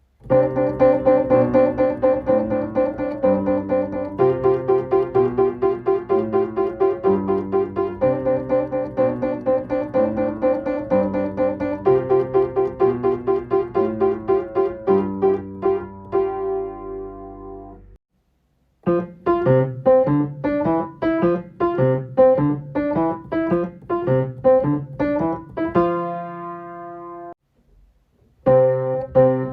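Piano playing a simple children's-song accompaniment with a one-note-at-a-time left hand. A first passage slows into held notes and stops about 18 seconds in; after a short break, a livelier passage of short, repeated notes follows, then breaks off and a new phrase starts near the end.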